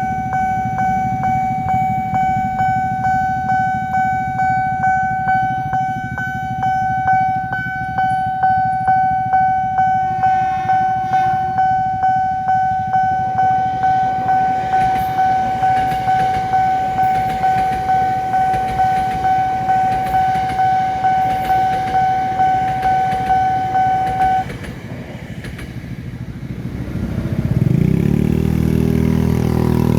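Railway level-crossing warning bell ringing in a steady pulse of about two strokes a second, then stopping about 24 seconds in. Near the end a vehicle engine grows louder over a background of road traffic.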